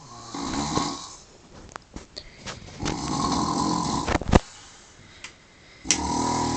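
A sleeping man snoring heavily: three long, rasping snores about three seconds apart. There is a sharp click near the end of the second snore.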